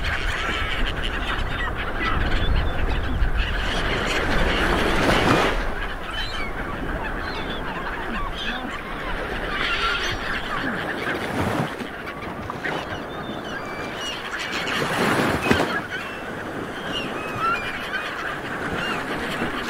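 Many birds calling, short honking calls scattered throughout, over a steady rushing noise that swells about every five seconds.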